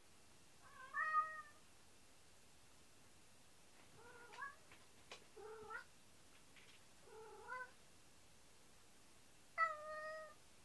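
A cat meowing about five times, short calls a second or more apart; the first and last are the loudest, and the last is the longest.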